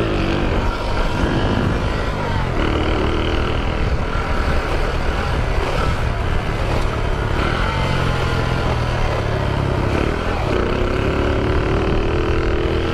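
Shineray 49cc motorcycle engine running under way, its pitch rising and falling a few times as the throttle changes. The owner describes this engine as knocking.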